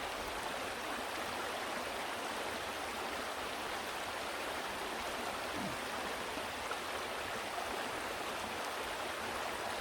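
Steady rush of water from a waterfall-fed stream.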